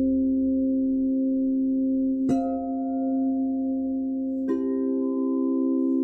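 Singing bowls ringing with several steady overlapping tones, struck twice, about two seconds apart, each strike adding a bright new ring on top of the sustained hum.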